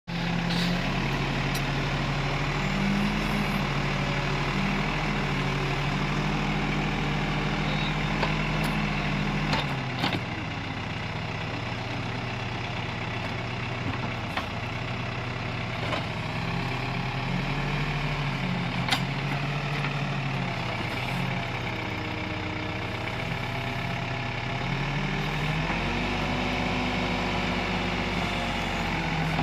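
Diesel engine of a backhoe loader running steadily, its pitch dropping about a third of the way in and rising again near the end as the load changes. A few sharp metallic clanks come through.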